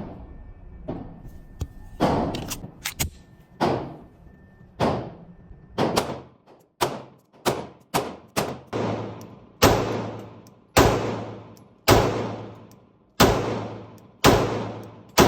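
Rost Martin RM1C 9mm compact pistol being fired shot after shot, over a dozen shots. Each shot is sharp with a long echoing tail. The shots come at an uneven pace at first, then settle to about one a second.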